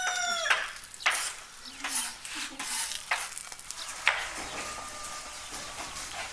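Food sizzling in a pan while it is stirred, the utensil clicking and scraping against the pan several times. A rooster's crow trails off in the first half second.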